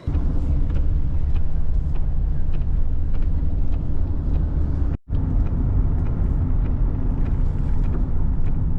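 Car driving, with a steady low rumble of road and engine noise that breaks off for a moment about five seconds in.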